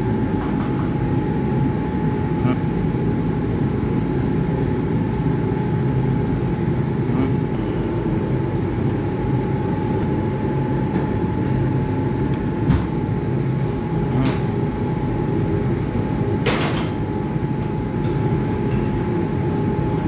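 Steady drone of commercial kitchen ventilation with a constant high whine running through it. A few faint clicks and one sharper knock about 16 seconds in.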